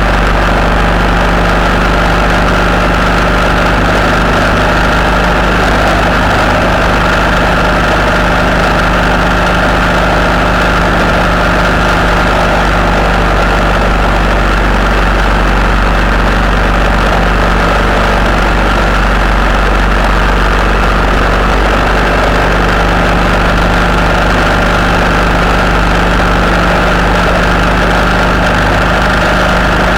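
Steady engine and road noise of a vehicle cruising on a wet motorway, recorded on board, with a constant low hum and no change in speed or pitch.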